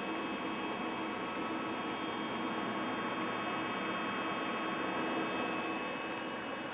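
Desktop PC running, its case fans whirring steadily, with several faint steady tones over the whir.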